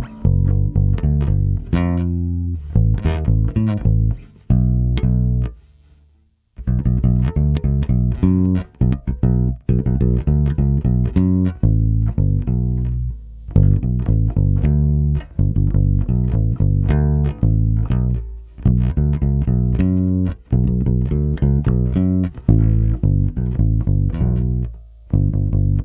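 Electric bass with Tom Marcel vintage Mustang pickups and flatwound GHS Brite Flats strings, played solo through a DI box and compressor. It plays a line of single plucked notes, lets a note die away to a pause of about a second some six seconds in, then carries on.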